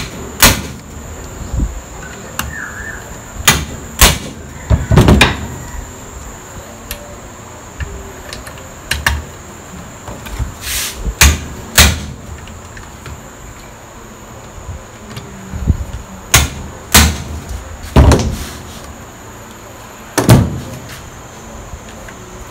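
About a dozen sharp knocks in irregular groups: a hammer striking a hand impact driver to break loose the tight Phillips screws of a Yamaha 125ZR's clutch cover.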